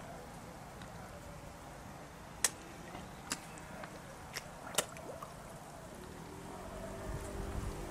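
Small sharp water plops at a still surface among reeds, three clear ones near the middle, over a low steady background. A faint hum comes in near the end.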